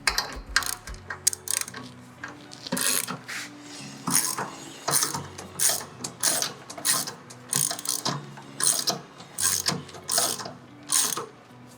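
A small jack being worked to lift the front of a motorcycle, clicking like a ratchet in a steady run of strokes, about two a second, after a few irregular clicks at the start.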